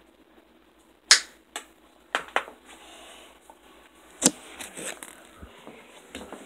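Objects being handled and set down on a hard surface: five sharp knocks and clicks, the loudest about a second in and another strong one about four seconds in, between quieter rustling.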